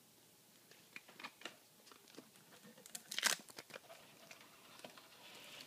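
Handling noise from a phone being picked up and moved: scattered faint taps, rubs and clicks, the loudest cluster about three seconds in.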